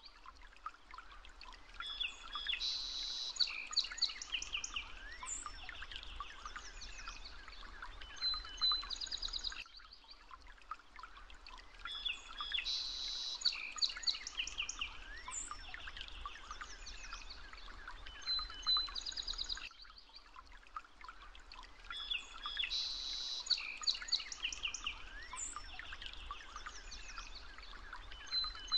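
Birdsong: chirps and trills over a soft steady hiss, forming a looped nature-ambience background that repeats identically about every ten seconds.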